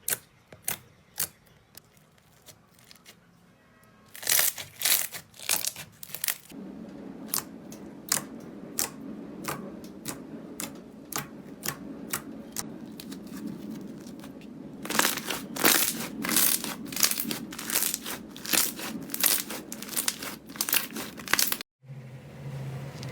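Slime being squeezed and poked, giving repeated sharp crackling pops and clicks, sparse at first and coming thick and fast from about four seconds in, over a low steady background sound.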